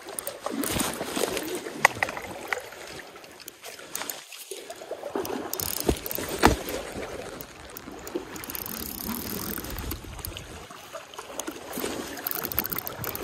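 Water sloshing and splashing around the legs of someone wading through a shallow river current, with fabric rubbing against the microphone. A couple of sharp knocks stand out, about two seconds in and again about six seconds in.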